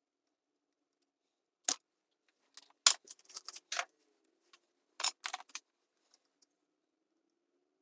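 Sharp clicks and metallic clinks of small hand tools working in a tube amplifier chassis during a grid leak resistor replacement. There is one click about two seconds in, a quick cluster around three to four seconds, and another cluster around five seconds.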